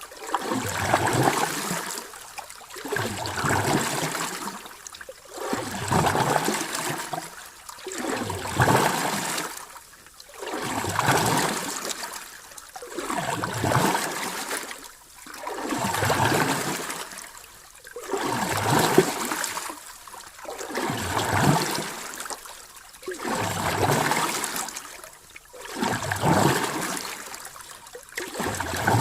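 Ocean waves washing in and drawing back, each surge of surf swelling and fading about every two and a half seconds.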